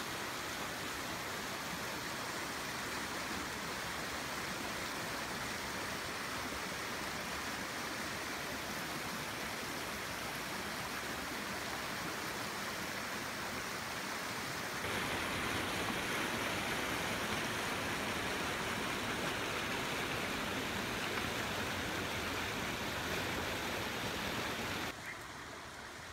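Rushing water of a rocky stream pouring over and between boulders, a steady rush that gets louder about halfway through and drops away suddenly near the end.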